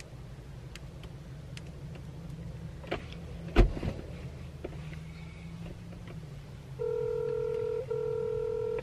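Smartphone being handled and tapped, a few light clicks and one sharp knock about three and a half seconds in, over a low steady hum. Near the end a steady phone ringback tone comes through the handset as an outgoing call rings, with one brief break in the tone.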